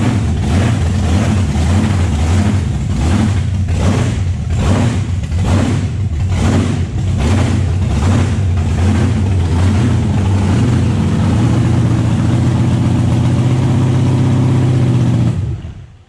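Supercharged 1,700 hp V8 burnout engine with a roots-type blower, idling loud and lumpy with a regular surge about every two-thirds of a second, then running steadier before it is switched off and cuts out near the end.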